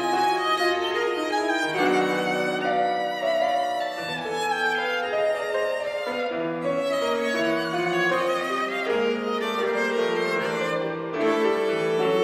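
Viola bowed in a slow classical piece, holding long notes, with piano accompaniment.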